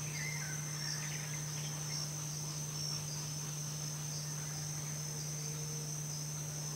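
Insects chirping in a steady, high-pitched chorus, with a steady low hum beneath and a few faint chirps near the start.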